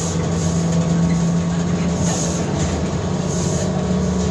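Belkommunmash BKM-32102 trolleybus running, heard from inside the passenger cabin: a steady electric hum with road and body noise, the hum rising slightly in pitch as it gathers speed.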